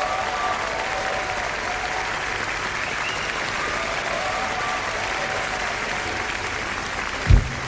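Audience applauding steadily, with a few faint voices in the crowd. Near the end a single deep thump sounds as music starts.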